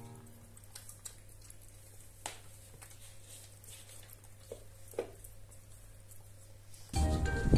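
A puppy eating wet food from a bowl: quiet chewing and smacking with a few small clicks against the bowl. Loud music cuts in near the end.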